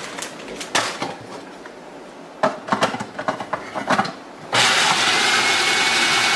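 Cheetos rattling into a plastic food processor bowl and the lid and pusher clicking into place, then about four and a half seconds in the food processor's motor switches on with a loud steady whir as it grinds the Cheetos.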